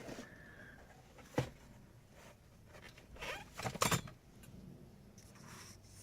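Small handling noises from plastic steering-column trim being worked by hand: one sharp click a little over a second in, then a quick run of clicks and scraping around three to four seconds in.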